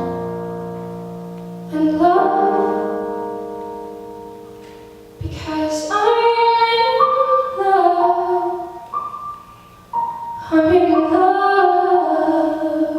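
Piano accompaniment holding chords that ring and fade, then from about five seconds in a female voice singing a wavering melodic line over the piano.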